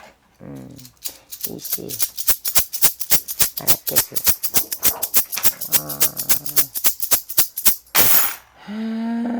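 A hand-shaken rattle clicking rapidly and evenly, about six shakes a second, during a shaman's divination. Near the end come a short rushing burst and then a long held note.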